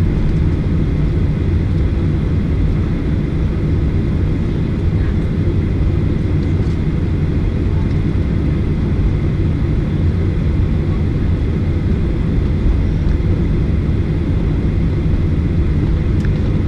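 Steady low rumble of jet airliner cabin noise while the plane taxis, from the engines and the rolling landing gear.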